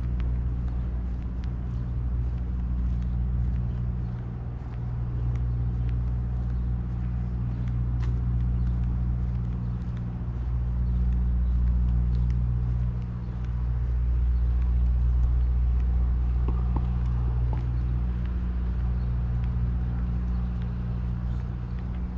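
Steady low drone of an idling engine, easing off a little twice before coming back up.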